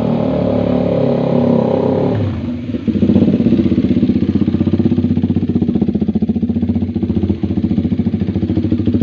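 KTM Duke 390's single-cylinder engine running through a newly fitted SC Project aftermarket racing exhaust: held at raised, steady revs for about two seconds, then dropping back and settling into an idle with distinct, evenly spaced exhaust pulses.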